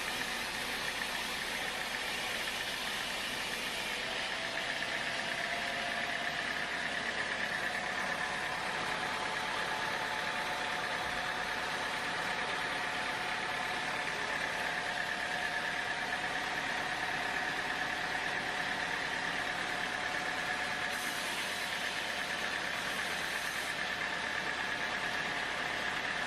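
A sawmill band saw running steadily, with a constant high whine and a fainter lower tone over a machine rumble.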